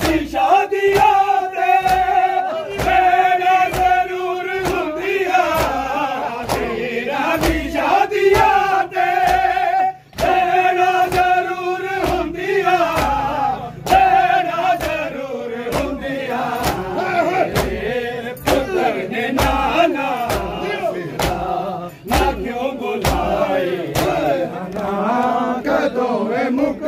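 A group of men chanting a nauha, a Shia Muharram lament, in unison, over steady rhythmic chest-beating (matam): a thump about every half second to two-thirds of a second, kept up under the chant with two brief breaks.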